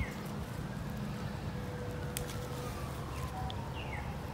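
Quiet background of low steady rumble, with a bird's short falling chirps near the start and end and a faint slow pitch glide in the distance.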